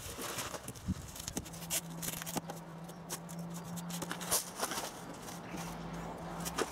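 Newspaper and masking tape being handled while taping paper over a car door: irregular rustles, crackles and rips of paper and tape. A faint steady low hum runs underneath from about a second and a half in.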